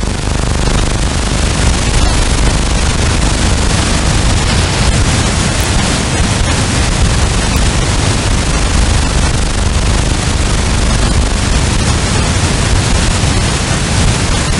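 Steady, loud hiss of static from a software-defined radio receiver's audio output as it is tuned across roughly 33 to 41 MHz. The uploader takes this for man-made interference noise present on all bands.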